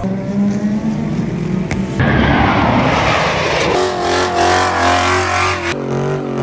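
Car engines held at high revs during burnouts with tyres spinning, in short segments that change abruptly. About two seconds in comes the loudest part, a harsh hissing stretch with falling pitch, before steady engine tones return.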